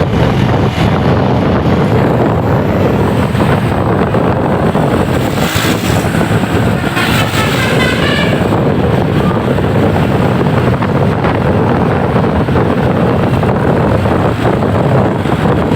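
Steady road noise of moving traffic, with wind blowing across the microphone.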